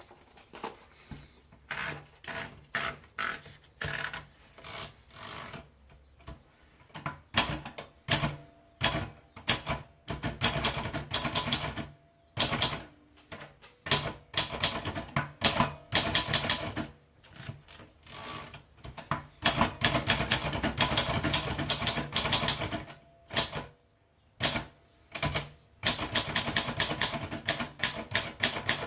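Royal Diana typewriter being typed on: runs of rapid key strikes broken by short pauses.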